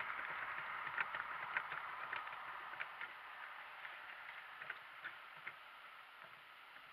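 Donkey-drawn cart on the move: light, irregular clicks and ticks from the donkey and cart over a faint steady hiss, growing fainter.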